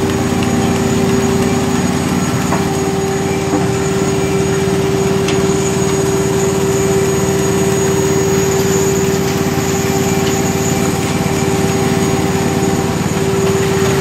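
Portable bucket milking machine's 1 HP vacuum pump running steadily under load, with a strong even hum, while its teat cups milk a cow.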